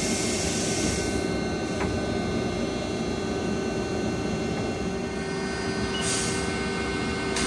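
Powered-up Haas ST10Y CNC turning centre humming steadily, with several steady tones over a low rumble. Short hisses come at the start and about six seconds in.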